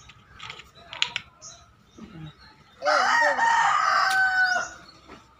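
Rooster crowing once, a single cock-a-doodle-doo of nearly two seconds starting about three seconds in. Small birds chirp faintly before it.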